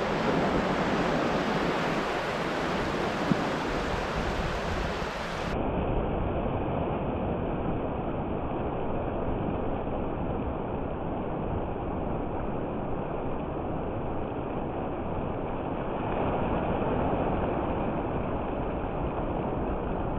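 Steady wind noise on the microphone and surf washing on a shore. The sound becomes duller about five and a half seconds in.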